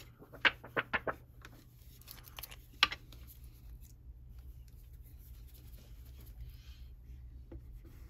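Craft supplies being handled on a work mat: a few sharp clicks and taps in the first second and one more near three seconds, then faint rustling of cardstock being moved.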